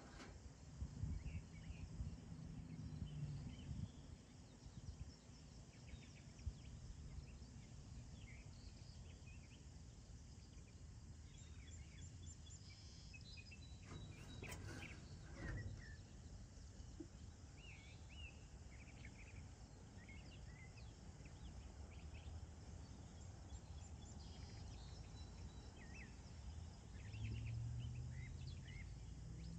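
Faint outdoor ambience: scattered short bird chirps over a low rumble, with a faint low hum near the start and again near the end.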